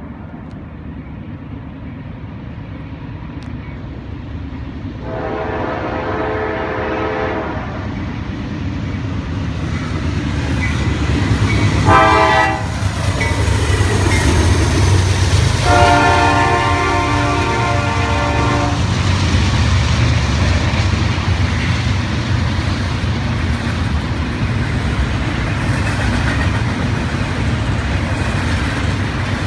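Norfolk Southern diesel freight locomotive sounding its horn for a grade crossing: a long blast, a short one, then a long one of about three seconds, the end of the crossing signal. After that the engine's rumble and the steady noise of the passing double-stack intermodal train's wheels grow loud and carry on.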